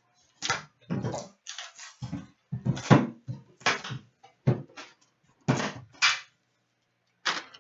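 Plastic shrink wrap crinkling and tearing as it is stripped from a metal trading-card tin, with the tin's lid lifted off near the end. About a dozen short crackling rustles with brief pauses between them.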